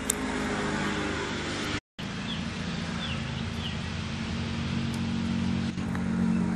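A steady low mechanical hum that cuts out for an instant just before two seconds in and resumes. Over it come a few short falling bird chirps, between two and three seconds in.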